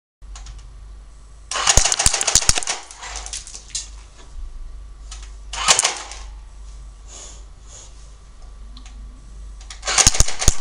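Electric MP5-style airsoft gun firing three full-auto bursts of rapid clicks: a longer burst about a second and a half in, a short one in the middle, and another near the end, over a steady electrical hum.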